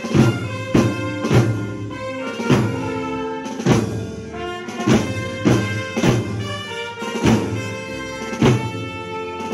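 Orchestral march music: brass holds sustained notes over a steady drum beat, just under two beats a second.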